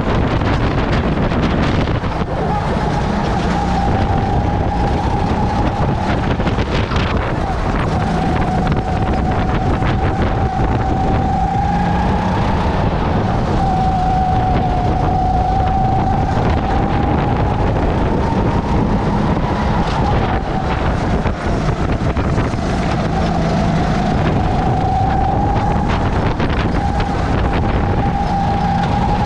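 Racing kart engine running at speed, heard from the driver's seat. Its pitch rises and falls slowly as the kart speeds up and slows through the corners, under wind buffeting on the microphone.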